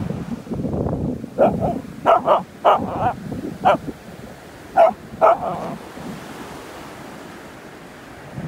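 Thai Ridgeback dog barking in short, sharp yaps with her head down a crab hole in the sand: a quick cluster of about seven starting a second and a half in, then three more around five seconds.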